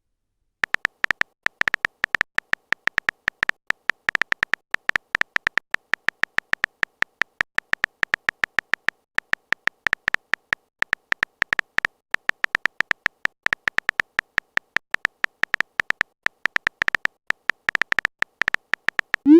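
Phone-keyboard typing sound effect: short high beeps in quick, slightly irregular succession, about seven a second, as a text message is typed out.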